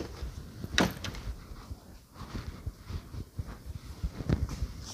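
Shoes being handled and set down on a tabletop: a sharp knock about a second in, then scattered light bumps and rustles.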